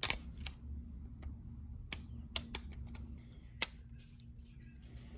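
A flathead screwdriver prying the snap-on outer plate off a plastic dimmer wall plate: a run of sharp plastic clicks and snaps at uneven intervals, the loudest right at the start.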